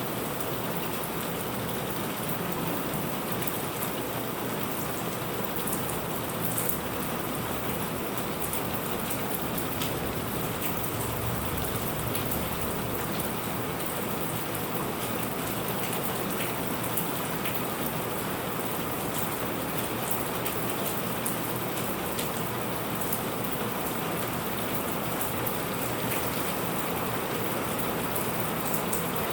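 Steady rain falling on surfaces, a continuous hiss with scattered individual drop ticks.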